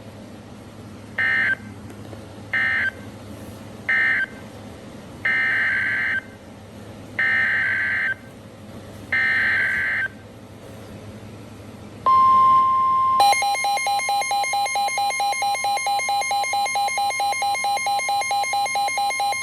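EAS/NOAA Weather Radio SAME digital data bursts: three short end-of-message bursts, then three longer header bursts that open the next alert. About twelve seconds in, the steady 1050 Hz Weather Radio alert tone starts, and about a second later a rapidly pulsing electronic alarm tone joins it.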